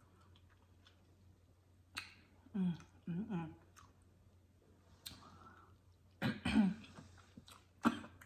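Close-up mouth sounds of a woman eating chitterlings: scattered wet clicks and smacks, two short hummed sounds a little under a third of the way in, and a louder throat clearing about three-quarters through.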